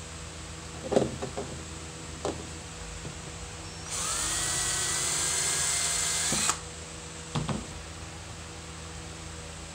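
Handheld power drill boring a hole through a small black plastic cap, running for about two and a half seconds with a whine that rises in pitch as it spins up, then levels off and stops abruptly. A few short knocks come before and after.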